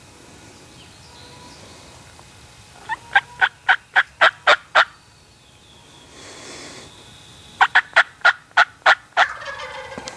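Wild turkey calling in two runs of about seven or eight sharp notes, roughly four a second, a few seconds apart; the second run ends in a rougher, drawn-out note.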